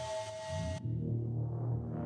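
Ambient background music. A held two-note tone cuts off suddenly a little under a second in, leaving low, sustained notes that swell up toward the end.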